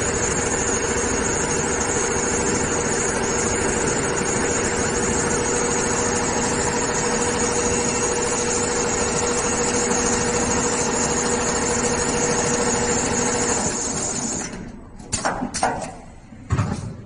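Double-head automatic industrial sewing machine running and stitching: a steady mechanical running noise with a constant high whine. It stops about fourteen seconds in, followed by a few sharp clunks.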